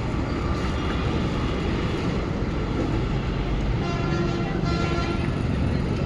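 Steady rumble of road traffic, with a faint vehicle horn sounding about four seconds in and again near the end.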